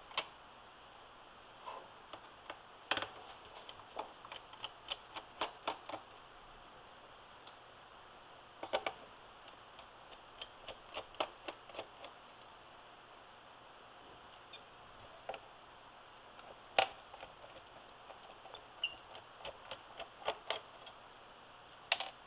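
Small screwdriver clicking and scraping against screws and the plastic bottom case of a Sony Vaio VPCEB33FM laptop as its screws are taken out: light irregular clicks in clusters, with a few sharper knocks.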